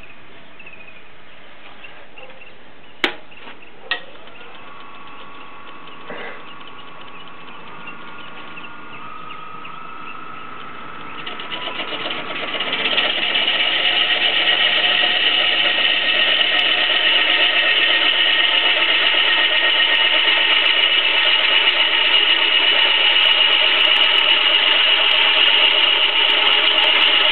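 A wood lathe spinning up, its motor whine stepping up in pitch, with two sharp knocks a few seconds in. About halfway through, a gouge bites into the large spinning log and a loud, steady cutting noise takes over as the log is rough-turned, chips flying off it.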